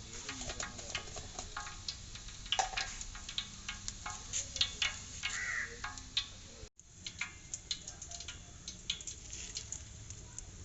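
Cumin seeds crackling and popping in hot coconut oil in a steel pot: many small, irregular pops over a faint sizzle. The sound drops out for an instant about two-thirds through.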